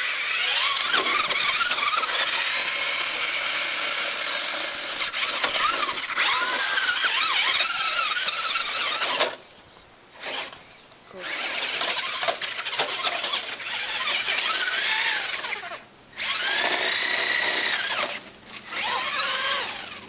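Traxxas Rustler RC truck's brushed electric motor and drivetrain whining at a high pitch that rises and falls with the throttle. It runs in long stretches with a few short breaks where the throttle is let off.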